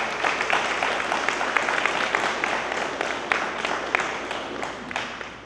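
Applause from many people clapping together, which dies away near the end.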